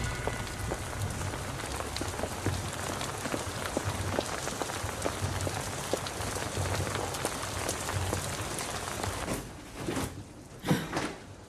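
Steady rain falling, with many small drops striking close by. Near the end the rain drops away and a few footsteps on wooden stairs knock out.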